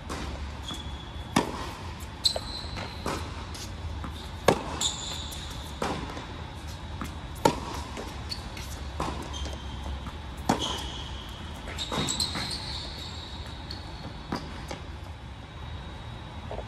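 Tennis rally on an indoor hard court: racket strikes and ball bounces about every second and a half, the nearer player's strikes loudest. Short high squeaks from shoes on the court come between shots, over a steady low hum.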